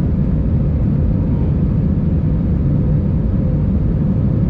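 Steady low rumble of an Airbus A320-232's IAE V2527 engines and airflow heard inside the passenger cabin, with a faint steady hum above it.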